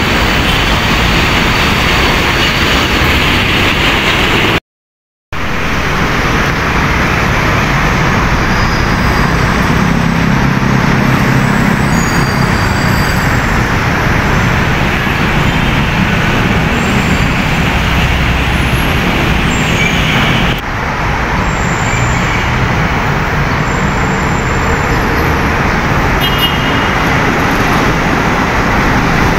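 Heavy road traffic: trucks and cars passing close by, a steady din of engines and tyres, with a stronger low engine rumble about ten seconds in. The sound cuts out for about half a second around five seconds in.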